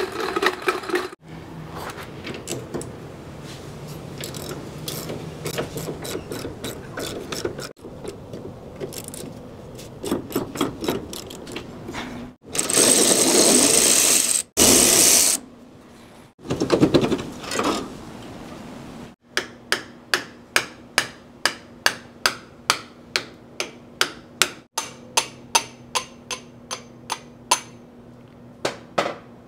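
Hand tools at work on car brake parts, heard in short cuts: scraping and clinking, then a loud hiss lasting about three seconds in the middle. In the last third comes an even run of sharp metal clicks, about two a second.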